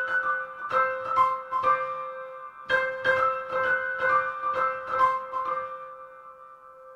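Background music: piano-like keyboard notes struck over a held tone, with a short break about two seconds in, then dying away near the end.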